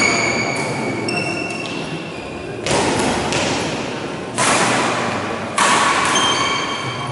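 Badminton rally in a large hall: rackets striking the shuttlecock three times, each hit a sudden smack followed by about a second of echo, with short high squeaks in between.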